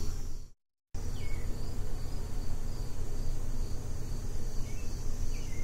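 Crickets chirping in a steady, evenly repeating rhythm under constant hiss and a low hum. The sound cuts out completely for a moment about half a second in, then returns unchanged.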